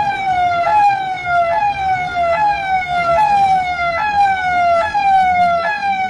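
Siren-type sound effect: a single pitched tone that slides down a little and snaps back up, repeating about once every 0.85 seconds, seven times over.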